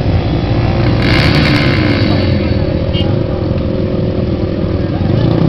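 Small quad (ATV) engines running steadily at idle, with a brief rush of noise about a second in.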